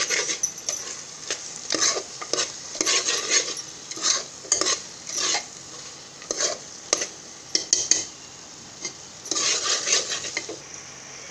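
A metal spoon stirs and scrapes thick masala gravy against the sides and bottom of an aluminium pressure cooker in irregular strokes, which keeps the masala from catching and burning on the bottom. A low sizzle runs underneath, and the stirring stops near the end, leaving only the sizzle.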